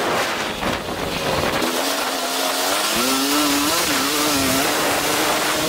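KTM 250 SX-F four-stroke single-cylinder motocross engine running under throttle, its pitch dipping and climbing as the rider works the gas, stepping up about three seconds in and then holding steady. Heavy wind rush over the helmet-mounted camera's microphone.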